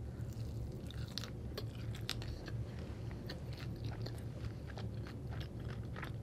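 A person chewing a bite of potato latke with the mouth closed: a run of small crunches and clicks, over a low steady hum.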